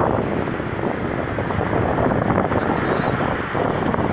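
Wind blowing across the microphone, a steady rushing noise.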